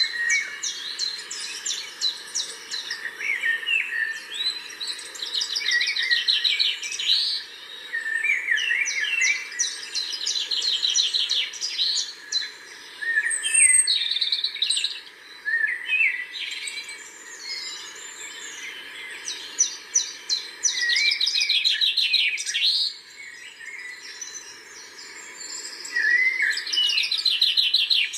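Birds singing: overlapping chirps and fast rattling trills, repeated in phrases every few seconds, over a steady faint background drone.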